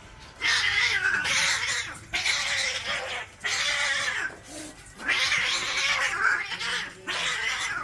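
A cat yowling harshly in a string of long cries, each a second or two long, with short breaks between them.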